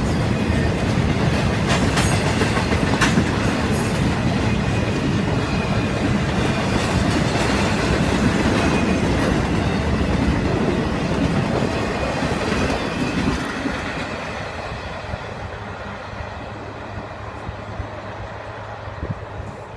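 Norfolk Southern intermodal freight cars rolling past, their wheels clacking over the rail joints in a steady loud rumble. The noise fades gradually over the last several seconds.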